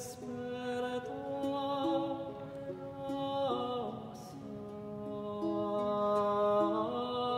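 A tenor sings slowly in Spanish, holding long notes with a slide down in pitch about halfway through, accompanied by a softly plucked baroque guitar.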